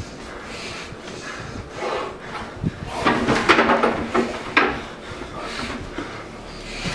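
A plastic bread bag rustling and crinkling as bread is handled on a kitchen counter, loudest for a second or so about three seconds in.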